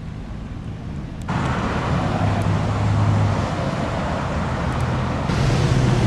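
Road traffic noise: car engines and tyres, with a steady low hum, getting suddenly louder a little over a second in.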